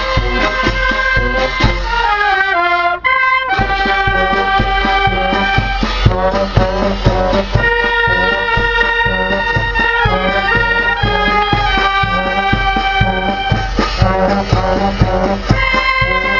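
Maltese street band playing a march: clarinets and brass carry the melody over steady bass drum and cymbal beats. About three seconds in, a falling run and a brief break in the drum.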